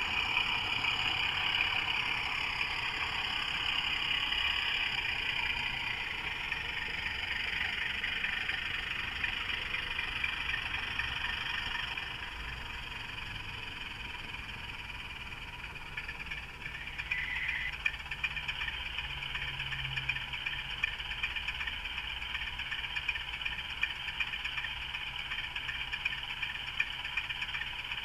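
Model diesel locomotive running along layout track, its small electric motor whirring steadily. From about halfway through, regular light clicks from the wheels join in.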